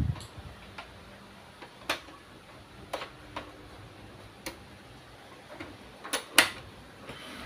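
Scattered light plastic clicks and taps as a USB cable plug is handled and pushed into the port of an HP LaserJet P1606dn printer. There are about seven clicks, the loudest a quick pair about six seconds in.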